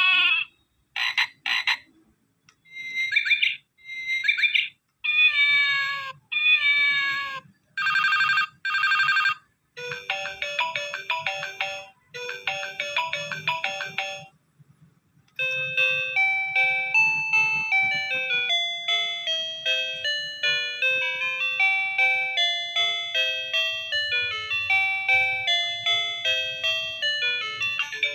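Toy mobile phone playing its electronic sounds: a string of short sound effects, some with wavering pitch, each cut off after a second or two as if set off by button presses. About halfway through it changes to a steady tune of plain beeping notes.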